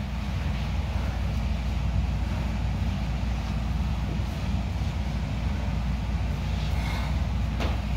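A steady low rumbling hum, with a few faint ticks near the end.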